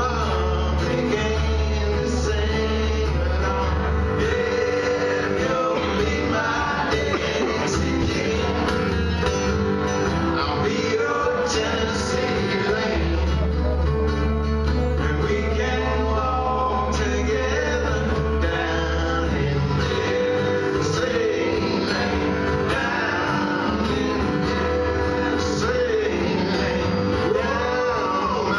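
Live acoustic duo: two acoustic guitars strummed and picked together, with a man singing over them.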